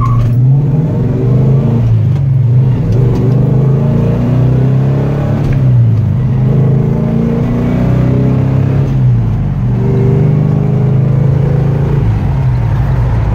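1968 Plymouth GTX's 440 V8 accelerating through the gears of its four-speed manual, heard from inside the cabin. The engine note climbs and falls back with each of three upshifts, then holds steady near the end.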